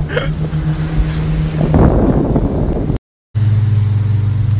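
Motorboat engine running steadily over the rush of water. The sound drops out for a moment about two-thirds of the way through, and a lower, steady engine drone follows.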